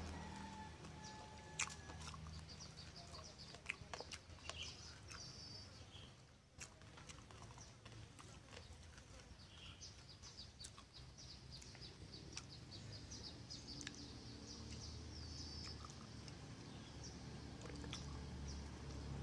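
Faint background chirping and clucking of birds and chickens, in short repeated high calls, with a few sharp clicks.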